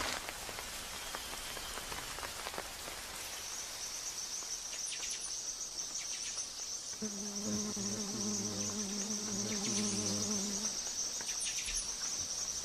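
Light rain falling in the rainforest, with a steady high-pitched insect trill that starts a few seconds in and continues. In the second half a low, wavering pitched tone sounds for about four seconds.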